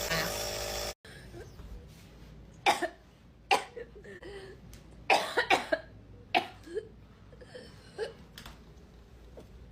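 A person coughing repeatedly in short, separate coughs, about nine in all, with a quick run of four about five seconds in.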